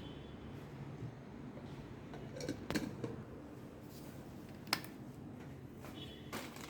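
Handling noise from unboxing a bullet blender's box and parts: a few light clicks and knocks, a cluster about two and a half seconds in and one sharp click near five seconds in, over a low room hum.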